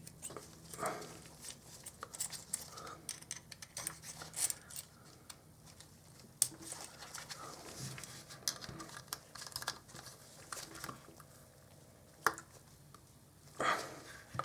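Scattered small clicks, taps and light scrapes of Canon FD 55mm f/1.2 S.S.C lens parts being handled and fitted during reassembly, irregular and quiet.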